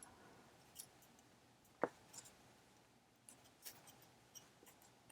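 Near silence with a few faint, scattered clicks of knitting needles as stitches are worked.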